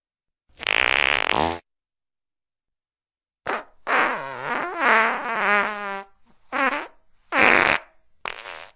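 A string of fart sound effects separated by dead silence: one about half a second in, a long wavering one from about three and a half seconds, then three short ones in quick order near the end.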